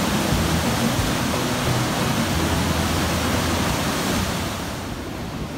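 Flood-swollen Katsura River rushing over a weir: a steady, loud noise of churning muddy water. It drops a little in level about four and a half seconds in.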